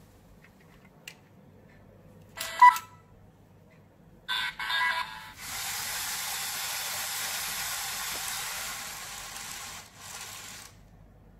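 LEGO EV3 brick playing two short electronic sound effects, the first loud, then the LEGO slot machine's reels spinning, driven by an EV3 large motor through LEGO gearing: a steady whir for about five seconds that stops as the reels come to rest.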